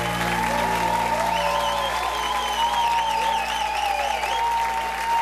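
A live band's final chord rings out under steady audience applause and cheering. High, wavering whistles from the crowd come in about a second and a half in.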